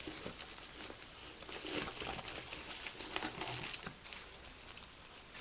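Plastic packaging crinkling and rustling in irregular bursts as a tightly wrapped, taped package is handled and pulled open.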